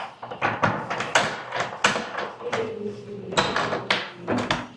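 Irregular clicks and knocks of a room door being handled and opened.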